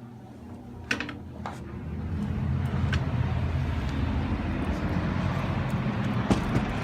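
A couple of sharp clicks about a second in, then the steady rumble and hiss of outdoor road traffic swells up and holds, with another click near the end.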